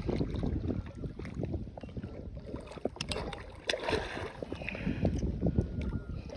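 Irregular knocks and clicks and water sloshing around a kayak hull, over a steady low rumble of wind on the microphone.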